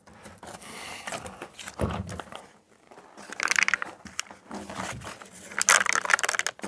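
Foil-faced sound-deadening mat crinkling and crackling as it is handled and pressed by hand onto the underside of a stainless steel sink, in irregular bursts that are densest about three and a half and six seconds in.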